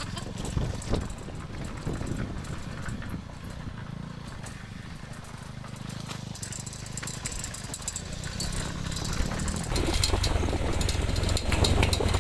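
Motorcycle engine running at low speed over a rough gravel track, with scattered rattles and knocks from the bumps. The engine gets louder about ten seconds in.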